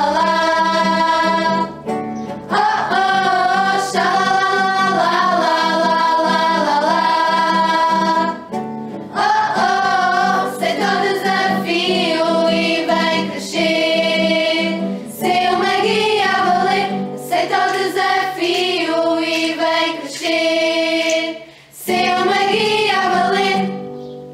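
A group of female voices singing a camp hymn in Portuguese in sung phrases with short breaks, with guitar accompaniment. The last phrase fades out near the end.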